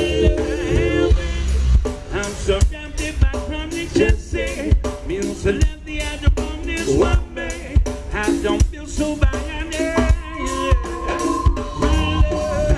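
Live ska band playing through a PA: a singer over guitars, bass and a drum kit keeping a steady beat.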